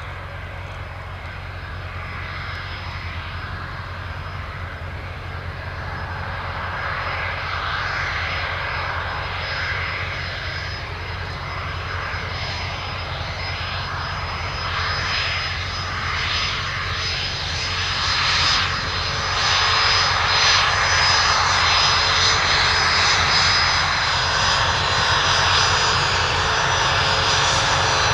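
Bombardier Challenger 605 business jet's twin GE CF34 turbofans running, a steady rushing sound with a high whine, growing gradually louder and loudest from about two-thirds of the way in.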